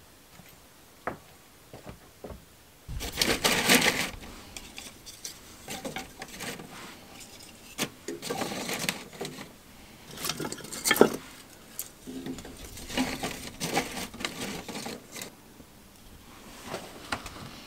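Kindling being handled and loaded into a small cast-iron wood stove: irregular bursts of wooden clatter and rustling with sharp knocks and metal clinks from the stove.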